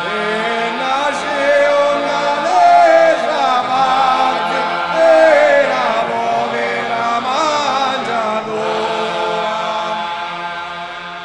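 Traditional Sicilian Christmas chant: singing that bends and ornaments a melody line over a steady held drone, fading out near the end.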